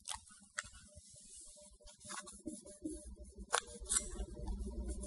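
A few faint handling clicks and taps, then, from about four seconds in, a wipe rubbing back and forth in the empty battery bay of an iPhone 5c, cleaning off leftover battery adhesive.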